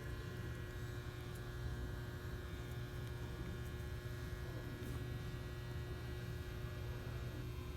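Steady low electrical hum, like mains hum, unchanging throughout.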